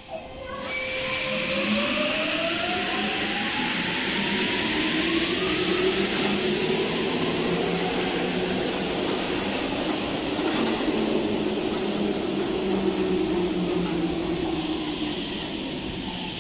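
RATP MP14 rubber-tyred metro train pulling out and accelerating past: a rising electric motor whine over steady rolling noise.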